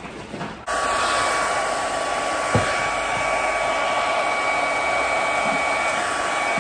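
Handheld hair dryer with a comb attachment blowing steadily: rushing air with a constant motor whine. It cuts in abruptly just under a second in, and there is a single brief knock midway.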